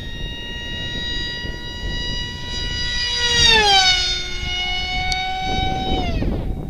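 ParkZone F-27C Stryker, an electric RC flying wing, flies past overhead with its motor and propeller whining at a steady pitch. The whine is loudest and drops in pitch as it passes, about three and a half seconds in, and cuts off about a second before the end.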